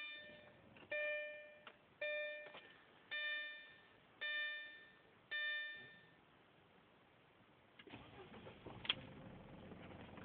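Audi A4 dashboard warning chime ringing six times, about once a second, each ding fading out. About eight seconds in, a rougher, fuller noise begins, with one sharp click soon after.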